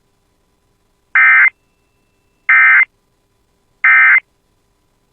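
Three short bursts of harsh buzzing digital data tones from NOAA Weather Radio's SAME/EAS system, each under half a second and about 1.3 s apart, with silence between: the end-of-message code that closes the warning broadcast.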